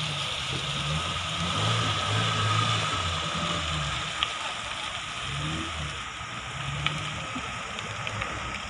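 Small pickup truck's engine revving in uneven surges as it labours up a slippery mud track, its pitch stepping up and down, over a steady hiss, with a couple of sharp clicks.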